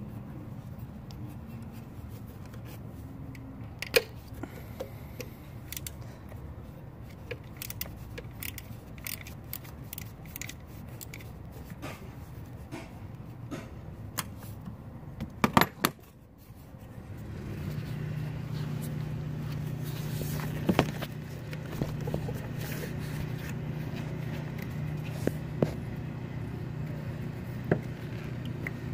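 Small ratchet wrench clicking in short runs, with metallic scrapes, as it works the mounting bolt of a camshaft position sensor. About two-thirds of the way through, a steady low hum like an engine comes in and carries on.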